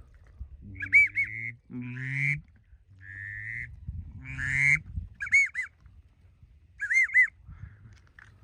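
Loud, close waterfowl calling: quick groups of two or three short, high honking notes, repeated several times, with two longer raspy calls and one steady held note in between.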